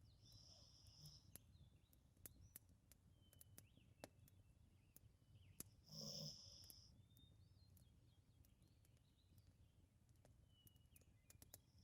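Labrador retriever asleep, snoring quietly: one snoring breath at the start and a louder one about halfway through, several seconds apart. Faint scattered crackles from a fireplace fire run underneath.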